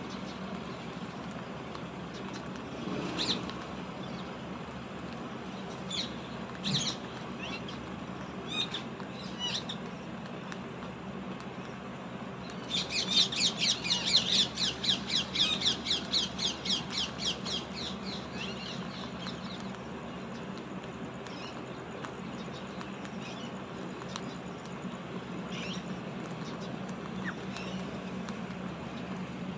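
Parrot calling: a few short squawks spaced out, then a fast run of rapidly repeated calls lasting about seven seconds midway, over a steady low background hum.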